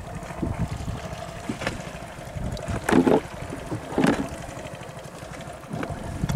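Water sloshing and splashing in a plastic tub as hands work through it, over a steady low boat-engine hum. Two brief louder sounds come about three and four seconds in.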